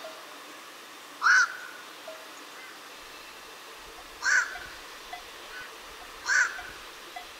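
Black-crowned night herons giving three short, loud single-note calls, two to three seconds apart.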